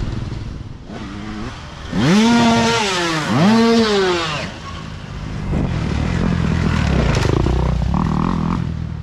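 Dirt bike engine revving hard twice as a rider passes close, each rev rising then falling in pitch, followed by a lower, steadier engine sound.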